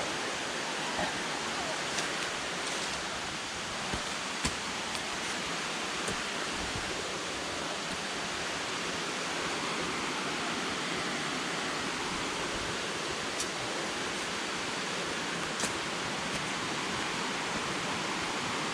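Steady rush of a waterfall, with a few faint clicks.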